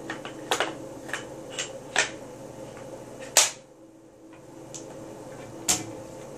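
Sharp metallic clicks and clacks of an M4 carbine being reassembled, the upper receiver closed onto the lower and the takedown pins pushed home. There are about eight separate clicks, with the sharpest about three and a half seconds in.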